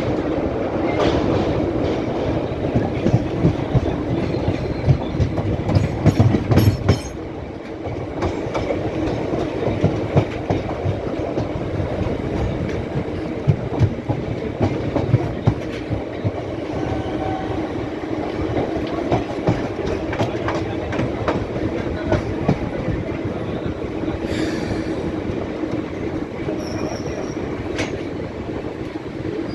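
Passenger train running on the rails: a steady rumble with the wheels clicking over rail joints, a cluster of louder clicks about a quarter of the way in.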